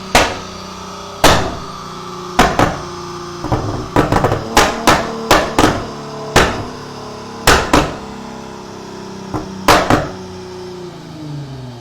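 Toyota Mark X's exhaust popping and banging, sharp cracks at irregular intervals, some in quick clusters, over the engine's steady running note. Near the end the revs fall away.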